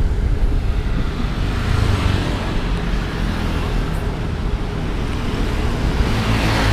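Wind rumbling on the microphone of a camera riding on a moving bicycle, over steady street traffic noise. The noise swells briefly near the end.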